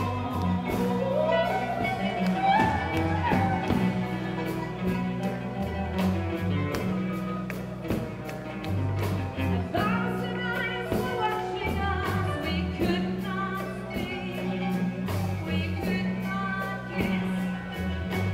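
Live band music: a woman singing a sliding melody over electric bass, drums and a steady beat, with oud, qanun and guitar in the band.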